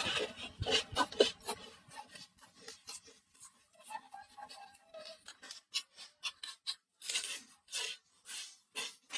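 Deep-fried scorpions being crunched and chewed close to the microphone: irregular short crunches and clicks.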